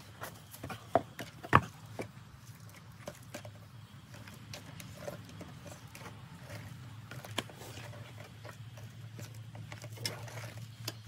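Rough stones knocking against each other as they are fitted into a stone step by hand: a few sharp knocks in the first two seconds, the loudest about a second and a half in, then scattered small clicks. A steady low hum runs underneath.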